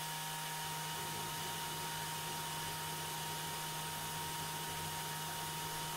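Tormach 1100 CNC mill spindle running steadily at 10,000 RPM as the end mill takes a light finishing pass to remove burrs from the part's edge: a steady low hum with a thin high whine over a constant hiss.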